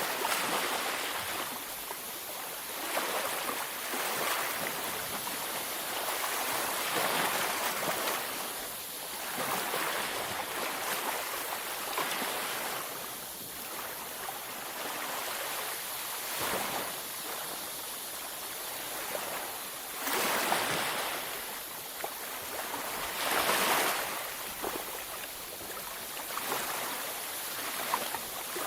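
Waves breaking on a beach, a continuous wash of surf that swells and recedes every few seconds.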